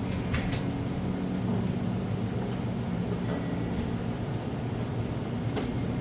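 Espresso machine running its automatic grinder calibration cycle: a steady low mechanical hum, with a few short clicks near the start and again near the end.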